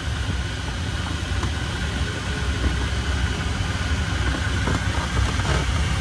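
Steady airflow noise over a sailplane in unpowered gliding flight: a low, even wind rush with no engine.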